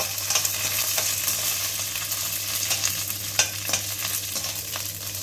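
Mustard seeds, chana dal, chillies, curry leaves and cashews sizzling in hot oil in a stainless steel kadai, stirred with a steel spatula that scrapes and clicks against the pan, the sharpest click about three and a half seconds in.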